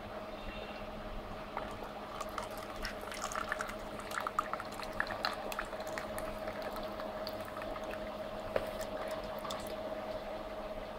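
Slush machine running with a steady hum while slush is dispensed from its tap into a plastic cup. Scattered small clicks and wet splashes are heard as the cup fills, mostly in the first half.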